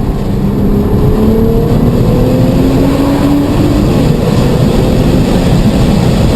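Car engine under hard acceleration, its pitch climbing slowly in small steps, over a loud steady rushing noise.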